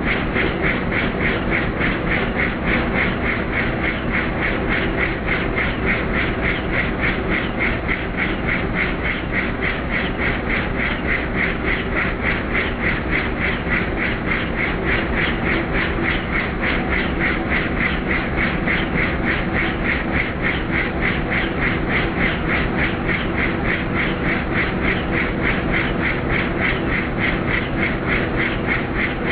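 Helicopter in flight heard from inside the cockpit: a steady, rapid, even beat of the rotor blades over a continuous engine hum, unchanging in pace and loudness.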